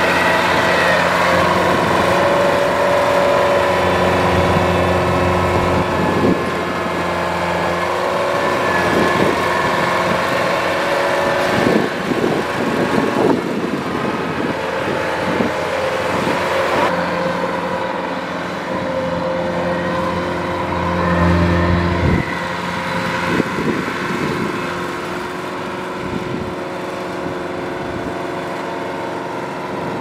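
Kubota DC-105X rice combine harvester running under load while harvesting: its diesel engine and threshing machinery make a steady, many-toned mechanical drone, with scattered clattering knocks through the middle.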